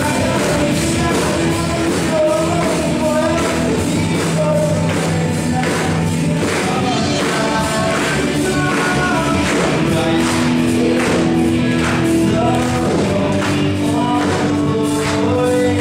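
Live praise band playing a worship song: a man singing over electric guitar and other instruments with a steady beat.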